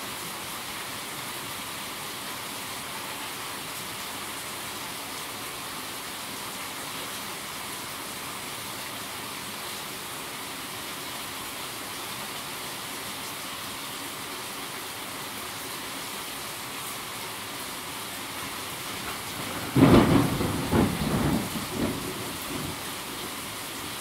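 Steady rain falling, then near the end a sudden loud thunderclap that rumbles on in a few rolling peaks for two or three seconds.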